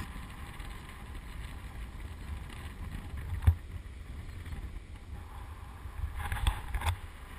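Wind rushing over the microphone and water hissing under a kiteboard riding across the sea, with one sharp knock about three and a half seconds in and a few smaller knocks near the end.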